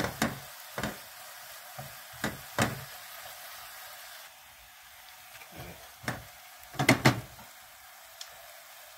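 Shaved beef sizzling steadily in a hot nonstick skillet. Wooden spatulas scrape and knock against the pan several times as the meat is broken into small strips, loudest in a cluster about seven seconds in.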